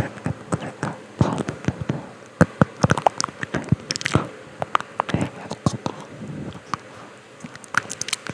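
Close-miked inaudible whispering: breathy, wordless mouth noise with many sharp mouth clicks and lip smacks.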